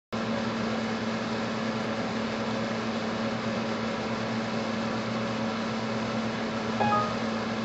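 Steady machine hum with a constant low tone over an even hiss, like a fan running in a small room. A brief faint click-like sound comes near the end.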